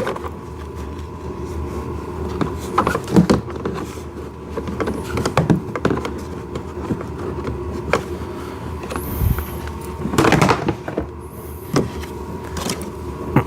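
Plastic ride-on toy car parts being handled and fitted: scattered knocks, taps and rustles, with a louder clatter about ten seconds in, over a steady background hum.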